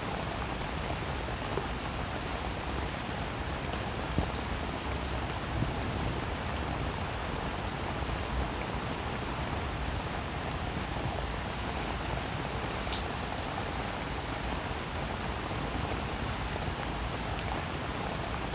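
Steady, even hiss with many faint scattered ticks, sounding like rain.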